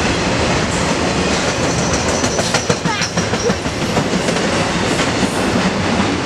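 Intermodal freight train of truck trailers on flatcars rolling past close by: a steady, loud rumble of the cars, with wheels clacking over rail joints.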